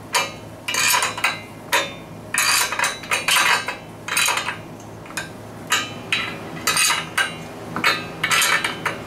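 Steel wrench clinking against a nut and anchor bolt as it is fitted on and turned again and again, tightening a concrete anchor that holds a steel stand's base plate. The sharp metal clinks and rattles come one or two a second over a faint steady hum.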